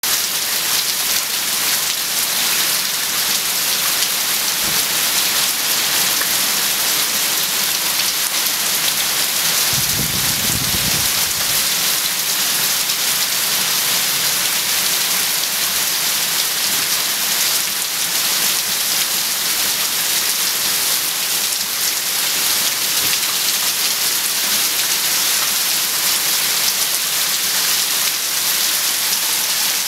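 Heavy downpour falling steadily on a flooded parking lot and parked cars, with a brief low rumble about ten seconds in.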